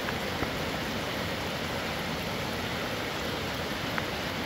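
Steady rain falling, an even hiss with a couple of faint ticks.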